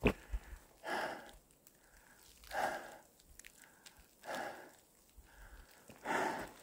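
A hiker breathing hard while climbing uphill under a heavy pack: four heavy breaths, each about half a second long and coming about every second and a half to two seconds.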